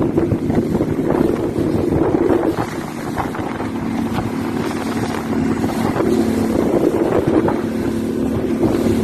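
Motorboat engine running steadily at speed, a constant drone under the rush of water and wind buffeting the microphone, as the boat tows a parasail.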